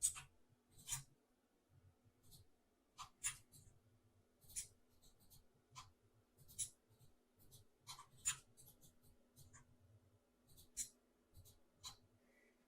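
Faint, short clicks and taps scattered irregularly, about one a second, from working a computer's pointing input while painting, over a faint steady room hum.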